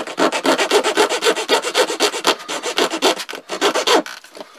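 Swiss Army knife metal-saw blade sawing a hollow crossbow bolt shaft with rapid back-and-forth rasping strokes, stopping about four seconds in.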